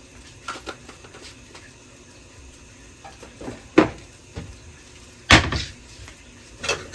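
A few separate kitchen knocks and clatters from items being handled, the loudest about four seconds in and again about a second later.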